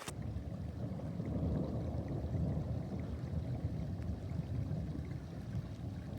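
Wind buffeting the microphone: a steady low rumble that swells and dips, with no clear tone or distinct events.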